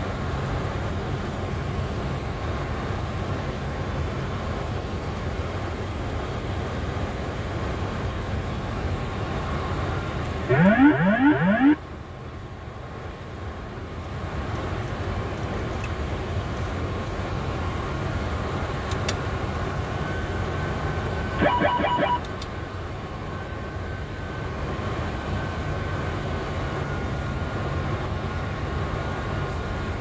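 Steady cockpit noise of a Boeing 747 on final approach: airflow and engines. About ten seconds in, a loud rising electronic wail lasts about a second. About twenty-one seconds in, a shorter pulsed electronic sound follows.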